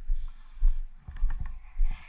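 Rhythmic low thumps, about two a second, with light clicks and rattles on each one.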